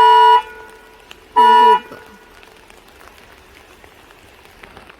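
Vehicle horn honking twice: a longer blast that ends just after the start and a short one about one and a half seconds in, both on the same steady pitch.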